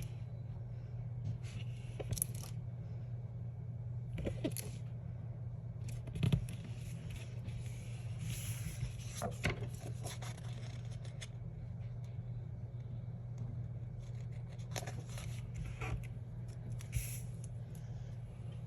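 Hands handling paper planner pages and stickers: scattered soft scrapes, rustles and small clicks at irregular moments, over a steady low hum.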